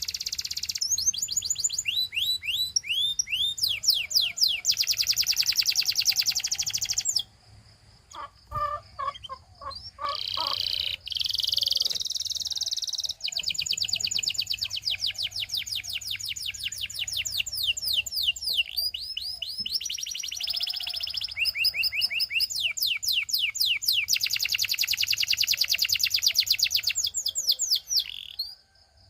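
Canary singing: long trills of rapidly repeated high notes and quick sweeping notes, with a short break about seven seconds in, filled by lower choppy calls. The song then resumes and stops just before the end.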